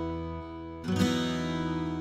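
Background music: a strummed acoustic guitar chord ringing out, with a fresh strum just under a second in.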